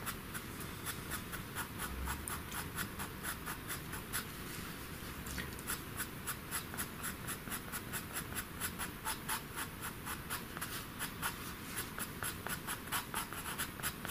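Faber-Castell Pitt pastel pencil scratching across paper in short, quick strokes, about four or five a second, as fur is drawn in.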